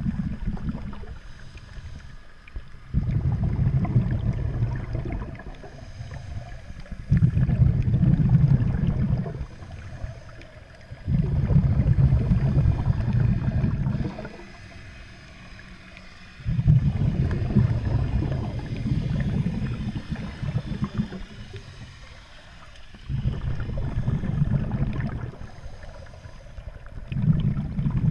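Scuba diver's exhaled bubbles from the regulator, heard underwater as low bubbling bursts of two to four seconds that come about every four to five seconds, with quieter pauses for each inhalation in between.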